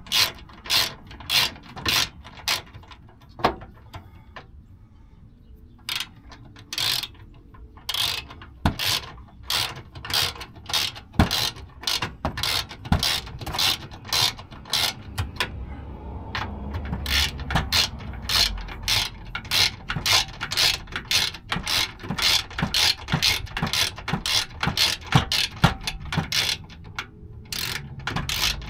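Hand ratchet wrench clicking in quick runs as it is swung back and forth, snugging up the mounting nuts of a spare tire carrier. There is a short pause about four seconds in.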